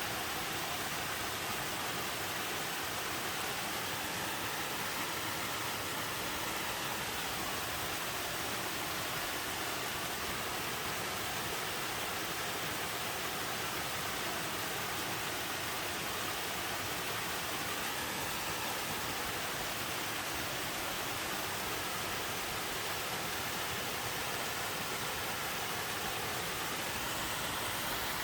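Chilyeon Falls' middle cascades pouring steadily into their pools: an even, unbroken rush of falling water.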